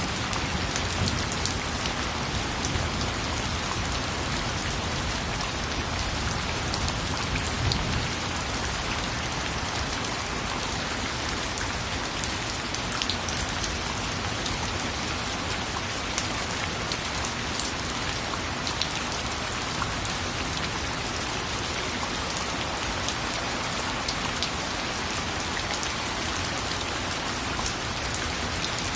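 Steady rain falling on a surface, an even hiss with individual drops ticking through it. A faint low rumble rises under it in the first few seconds.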